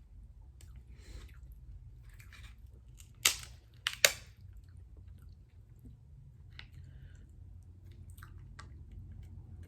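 Close-miked chewing of seafood-boil food, soft wet mouth sounds, with two sharp clacks a little after three and four seconds in that are the loudest sounds; a steady low hum lies underneath.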